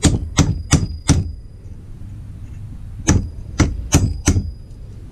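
Hammer blows on a metal pipe, driving a new tapered roller bearing onto a Subaru STI Torsen limited-slip diff centre. There are two runs of four sharp strikes, about three a second: one at the start and one about three seconds in. A thin high ring lingers after each run.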